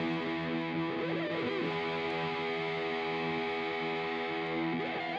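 Background music: a held, distorted electric guitar chord, with sliding notes about a second in and again near the end.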